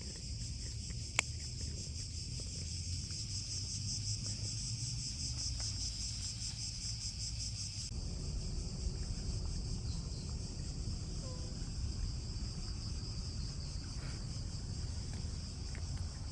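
Steady chorus of insects shrilling, a continuous high pulsing drone, over a low background rumble, with one sharp click about a second in.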